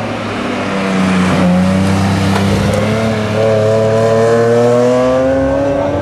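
Race car engines coming through a corner and accelerating, the engine note rising steadily in pitch from about three seconds in.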